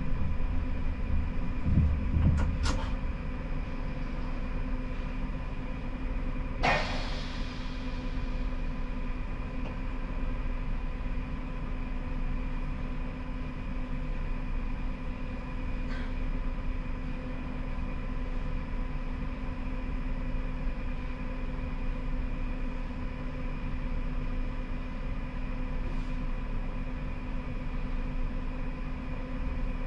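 Inside the cab of a Siemens Combino tram: a steady low rumble with a constant electrical hum. There is a sharp clunk about seven seconds in, and a few lighter clicks.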